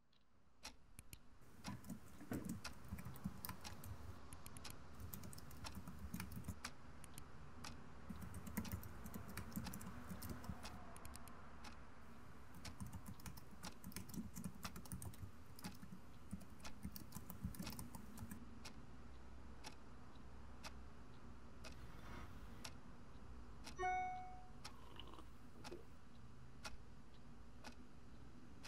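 Computer keyboard typing in dense, irregular runs of key clicks over a low steady hum. The typing gives way to sparser ticks about once a second, and a short chime sounds about 24 seconds in.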